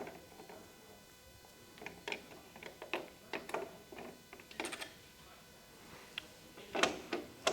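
Phillips screwdriver turning a screw to fasten a door-handle mechanism into a door: scattered small clicks and ticks of metal on metal, with a louder clatter near the end.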